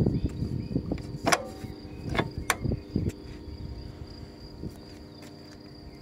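Slide-bolt latch on a pool ladder step being worked by hand: rubbing and knocking with three sharp clicks in the first few seconds, then quieter handling. A steady high insect trill runs underneath.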